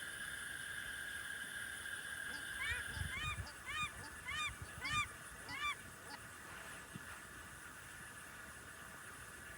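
A waterbird honking: a run of about six short calls, each rising and falling in pitch, roughly one every two-thirds of a second, over a steady high-pitched background tone.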